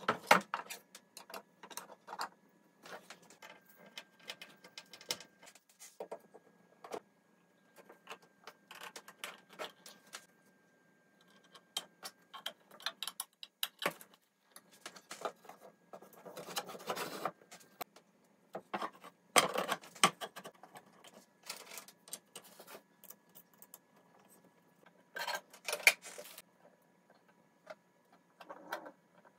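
Hand screwdriver turning screws into particleboard panels during flat-pack furniture assembly, with irregular clicks, scrapes and knocks of the panels being handled. There are louder bursts of clatter about 17 seconds, 20 seconds and 26 seconds in.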